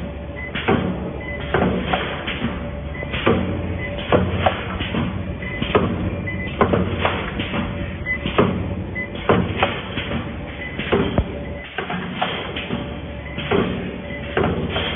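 Automatic wire mesh welding machine cycling: sharp mechanical clunks about one to two times a second, irregularly spaced, over a steady machine hum.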